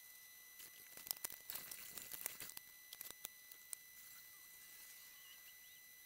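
Near silence: a faint steady high-pitched whine, with a scatter of faint clicks and short chirps in the first half or so.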